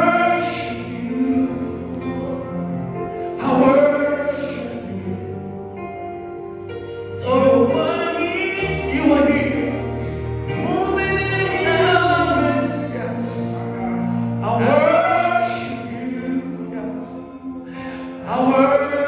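Gospel worship song: voices sing long, drawn-out phrases over sustained instrumental chords and bass. A new phrase starts about every four seconds.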